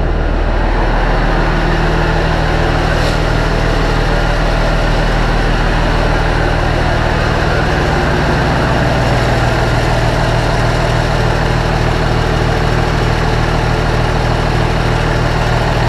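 MTZ-2022.3 tractor's D-260.4S2 six-cylinder diesel running steadily on its first run after an engine repair, its note shifting slightly about halfway through.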